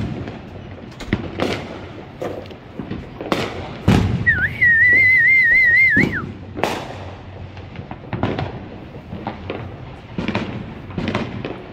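A string of sharp bangs and pops from New Year's Eve fireworks and celebratory gunfire across the neighbourhood. About four seconds in a heavy thump is followed by a loud warbling whistle lasting about two seconds.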